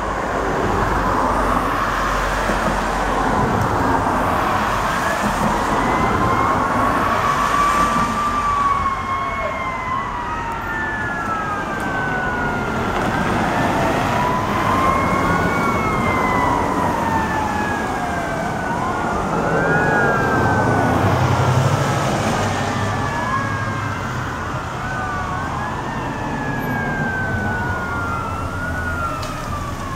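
Fire truck sirens wailing together, a Federal Q2B mechanical siren with electronic sirens, several tones overlapping as each slowly rises and falls in pitch.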